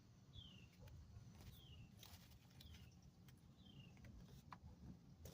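Faint bird song: a short falling whistled note repeated every second or so. A few faint clicks from the video doorbell being fitted onto its mounting bracket.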